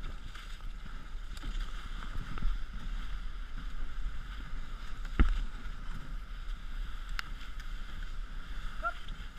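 Dog sled runners sliding over snow, a steady hiss with a low rumble as the team pulls the sled along. A sharp knock sounds about five seconds in.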